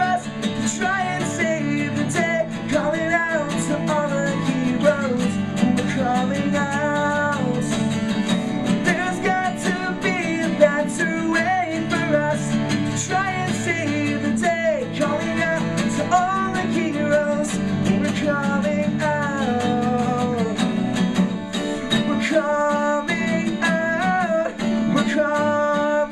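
Live acoustic band music: acoustic guitar strumming under a sung vocal melody with no clear words, running on to the end of the song.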